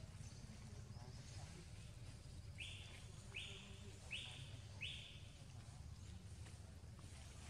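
A bird giving four short, harsh calls in quick succession, about three-quarters of a second apart, over a faint low rumble of background noise.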